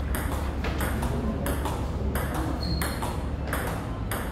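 Table tennis rally: the celluloid ball clicking off rubber bats and the tabletop in a quick, even run, about three hits a second, each with a short echo. A steady low hum sits underneath.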